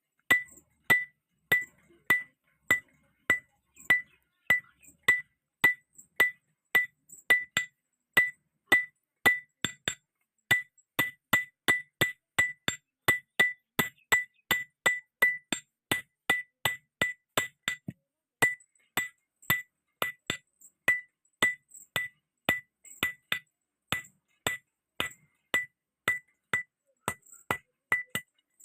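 Hand hammer striking steel on an anvil in steady blows, about two to three a second, each with a bright metallic ring, with two brief pauses: forging a railway clip into a chisel.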